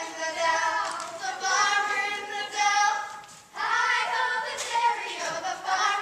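A group of children singing a song together, with held notes and a short break about halfway through.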